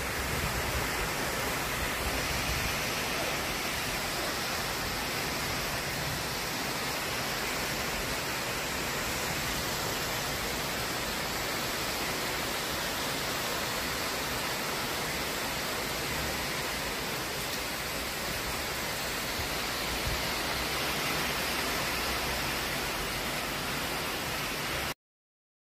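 Heavy tropical rain pouring steadily, a dense even hiss, with a low gusty rumble of wind swelling at times. It cuts off suddenly near the end.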